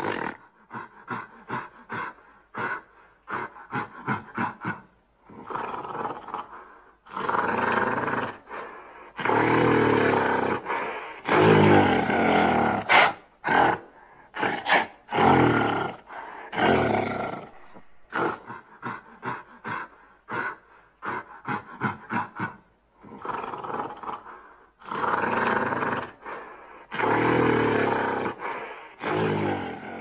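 Gorilla calling: runs of short, quick calls alternating with longer, loud calls, the loudest in the middle.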